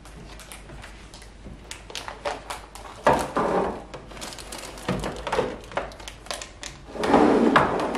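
Plastic snack and instant-noodle packets crinkling and rustling as they are handled and packed into plastic storage bins, with small knocks and clicks of the bins; louder rustling about three seconds in and again near the end.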